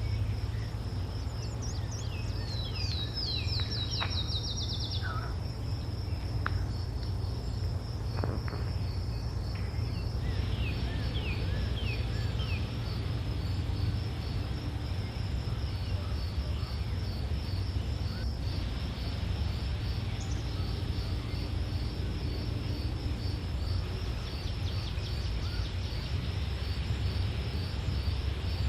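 Forest ambience: insects keep up a steady, high-pitched pulsing buzz, and a bird gives two quick runs of falling chirps, one near the start and one about ten seconds in, over a low steady rumble.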